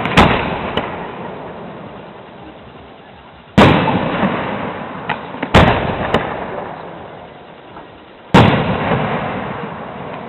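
Aerial firework shells bursting overhead: four loud bangs a few seconds apart, each followed by a long rolling echo that dies away, with a few smaller pops in between.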